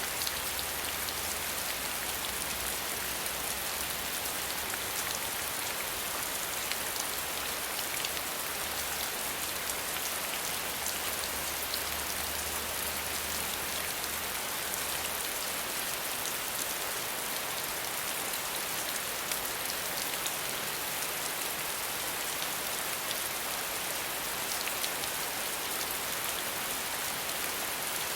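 Steady rain falling, a dense even patter of drops on surfaces. A faint low rumble underneath stops about halfway through.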